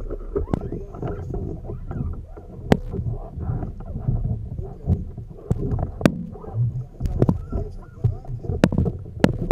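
Water sloshing and slapping around a kayak, with a low rumble and scattered sharp knocks and clicks against the boat.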